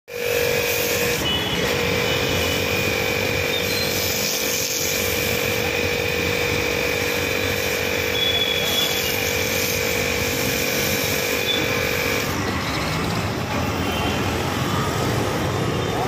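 2 hp trolley-type electric high-pressure washer running, with a steady whine and the hiss of its foam cannon spraying; the whine stops about twelve seconds in. Street traffic noise runs underneath.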